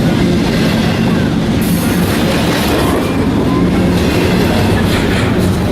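Train rolling past at close range: a steady, loud rumble of wheels on rail.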